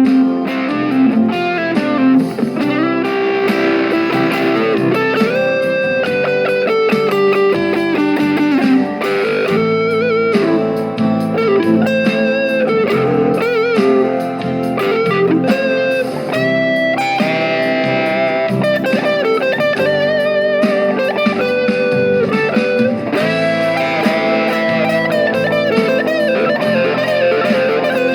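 Electric guitar played through a mini guitar amplifier: a melodic lead line with bent and sliding notes over steady lower chords, in a blues-rock style.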